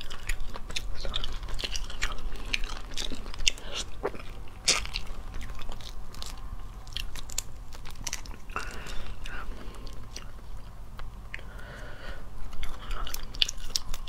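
Cooked crayfish shells cracking and crunching as they are pulled apart and peeled by hand: irregular sharp cracks, with some chewing.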